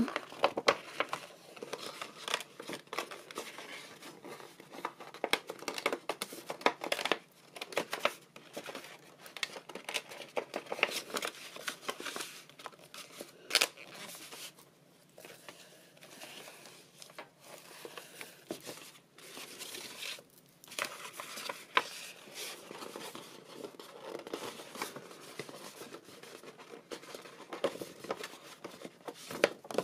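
Thick patterned craft paper being folded by hand along its score lines and pressed flat, giving irregular paper crackles and rustles, with a quieter stretch about halfway.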